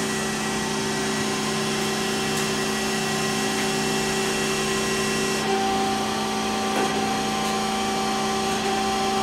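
Chevalier 1020 AD surface grinder running in hydraulic mode: a steady hum and whine with a hiss above it. The pitch pattern shifts about five and a half seconds in.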